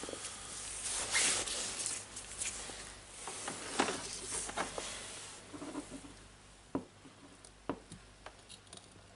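Handling noise from gloved hands moving a small drill motor and a soldering iron on a wooden bench: irregular rustling and scuffing for the first five seconds or so, then a few sharp light clicks.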